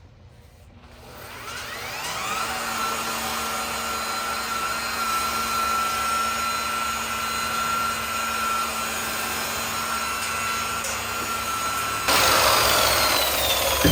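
Electric buffer motor spinning up with a rising whine, then running at a steady pitch. About twelve seconds in it turns suddenly louder and rougher, and its pitch sinks.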